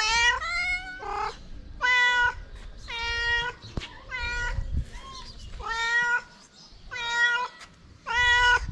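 A cat meowing again and again, about one short meow a second, each call held at a fairly level pitch.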